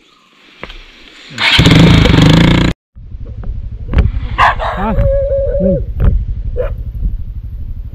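A Royal Enfield Himalayan's single-cylinder engine runs loudly for about a second, cuts off sharply, then runs on steadily as the bike rides along. Over the engine a dog barks several times between about four and seven seconds in, one bark drawn out into a longer whine.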